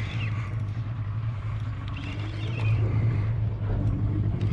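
Boat's outboard motor running steadily, a constant low hum.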